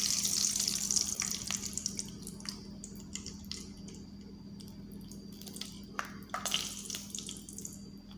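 Peanuts, curry leaves and mustard seeds frying in hot oil in a steel kadhai: the sizzle dies down over the first couple of seconds, leaving scattered pops and crackles.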